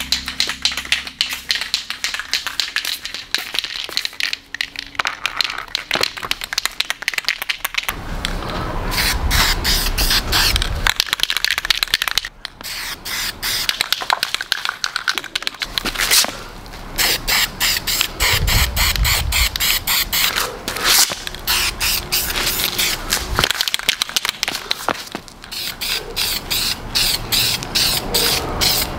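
Aerosol spray-paint can hissing in repeated stretches with short breaks between them as small fittings are coated black.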